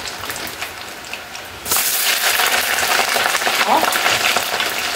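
Potatoes with ice on them frying in overheated oil: a dense crackling, spattering sizzle that jumps suddenly louder a little under two seconds in.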